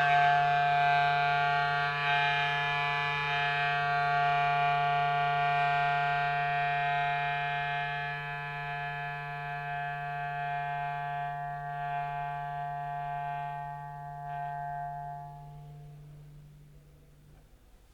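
Contemporary chamber ensemble holding one long chord: a low note under a dense cluster of higher tones. The chord thins from the top down and dies away over about fifteen seconds, the low note ending last.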